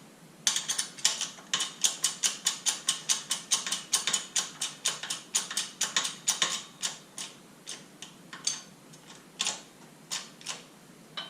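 Hand ratchet clicking rapidly, about four to five clicks a second, then slowing to scattered single clicks near the end.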